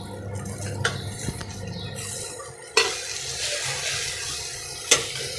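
Metal spatula scraping and knocking in a frying pan while a vegetable-and-egg omelette fries in oil, with sharp clinks about a second in, near three seconds and near five seconds. The sizzle grows louder partway through as a browned quarter is turned over.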